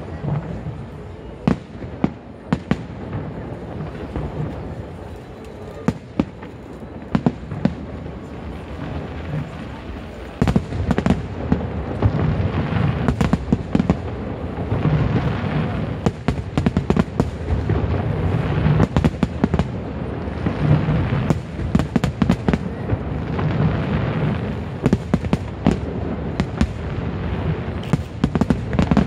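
Aerial fireworks going off: separate sharp bangs at first, then from about ten seconds in a dense, continuous barrage of bursts with crackling.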